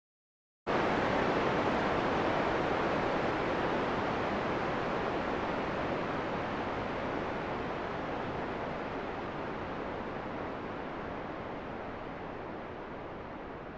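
Heavy rain as a steady, even hiss that starts abruptly under a second in and slowly fades away.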